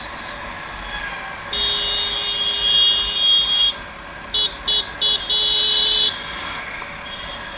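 Vehicle horn honking: one long blast about one and a half seconds in, three quick beeps, then a second long blast, over a steady background of engine and road noise.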